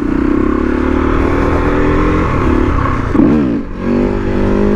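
Husqvarna SMR 510 supermoto's single-cylinder four-stroke engine running at low speed. Its pitch creeps up over the first two seconds, then one quick rise and fall in revs comes about three seconds in before it settles again.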